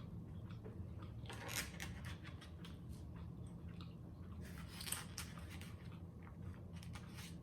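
Close-miked chewing and biting of Chinese takeout food, with crackly, crunchy mouth sounds, louder around a second and a half in and again near five seconds. A steady low hum runs underneath.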